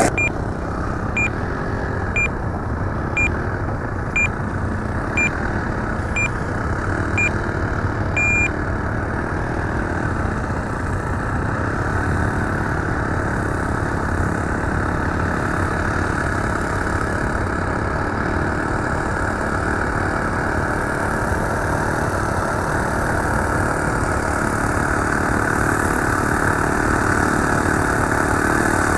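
A steady engine-like hum, with a short high electronic beep about once a second for the first eight seconds, ending in one longer beep.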